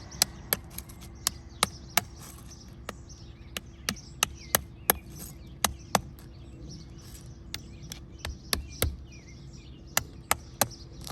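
Sharp, irregular clicks and taps of a thin metal pry tool working under asphalt roof shingles to break their sealant strips, about two or three a second, with birds chirping.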